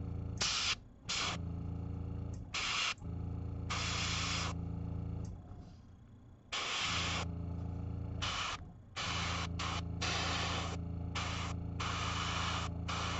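Airbrush spraying thin red paint in a run of short hissing bursts of air, stopping and starting as the spray is traced over a miniature. A steady low hum sits under the bursts and drops out when the spraying pauses.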